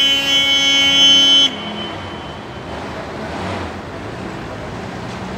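A vehicle horn sounds one long blast that cuts off suddenly about a second and a half in. After it, a vintage Mercedes-Benz minibus engine runs steadily as the bus rolls slowly past.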